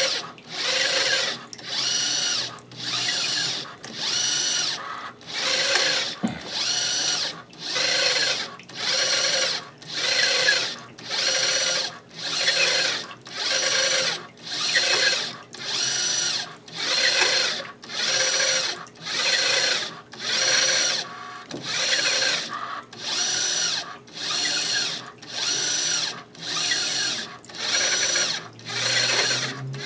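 Electric drive motor of a Raptor RCA-10 automated corrosion scanner whirring in short, even bursts about once a second as it moves the ultrasonic probe along the pipe during a C-scan.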